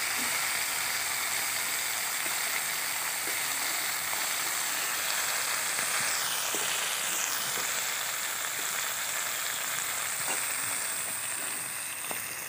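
Small puti fish (pool barb) frying in mustard oil in an aluminium kadai, a steady sizzle. A few light taps from the metal spatula as the fish are turned gently.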